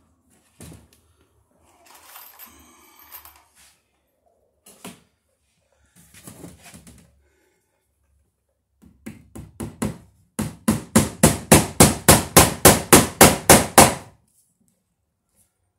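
A hammer striking wood framing: a few light taps, then a quick, loud run of about eighteen blows at some five a second, stopping near the end. Before that there are only faint rustles and knocks.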